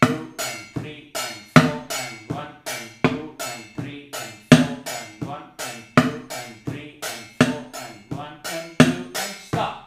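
Spoons beating a steady groove on a steel thali plate and an upturned plastic bucket, about three strokes a second with a louder accent every second and a half. The playing stops suddenly at the very end, a deliberate stop added to the pulse.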